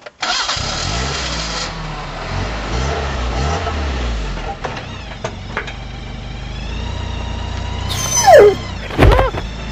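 A motor vehicle's engine running with a low rumble, then a loud dog-like yelp falling sharply in pitch about eight seconds in, followed by a second, shorter yelp.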